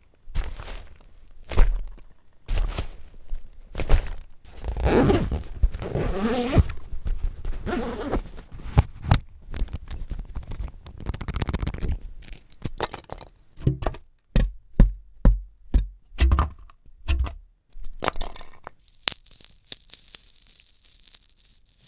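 Assorted close-miked foley sounds: a scraping, rubbing stretch with wavering pitch, then a quick series of knocks and clicks, and a high hiss near the end.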